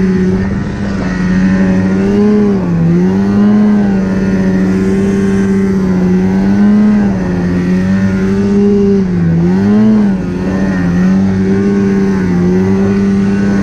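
Snowmobile engine running at high revs under way. Its pitch dips briefly and climbs back a few times as the throttle eases off and comes back on.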